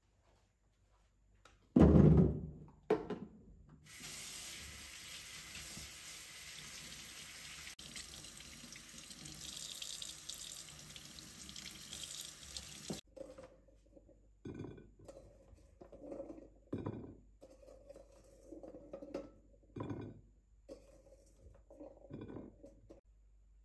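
A single loud thump about two seconds in, then a kitchen tap runs with a steady hiss into a stainless steel sink as cherry tomatoes are rinsed under it. The water stops suddenly, and wet cherry tomatoes are set one at a time into a glass dish with a series of soft knocks.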